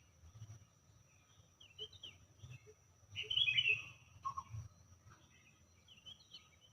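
Birds chirping and calling: scattered short chirps, with the loudest call, a quick cluster of falling notes, a little past halfway through.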